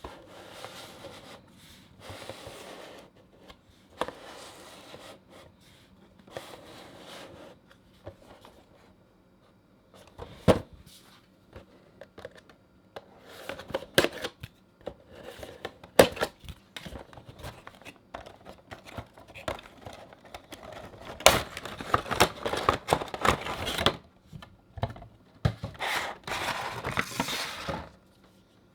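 A Funko Pop's cardboard window box and plastic insert being handled and opened by hand: scattered sharp clicks and taps, with bursts of rustling and crinkling that are busiest in the last several seconds.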